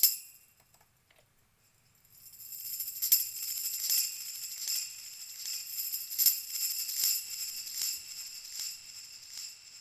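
Tambourine recording run through the Recirculate feedback delay plugin, its jingles repeating as ping-pong echo trails. A brief hit at the very start is followed by about two seconds of silence; then a steady beat of tambourine strikes with echoes comes in, a little under one a second.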